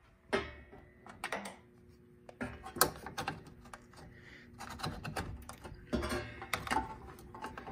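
Irregular clicks and knocks of a hand-held paging microphone being handled and hung back on its hook on a fire alarm panel's audio message generator, over a faint steady hum.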